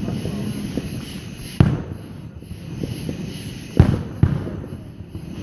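Fireworks going off: several sharp bangs at uneven intervals, the loudest about a second and a half in and a close pair near four seconds, over a steady background noise.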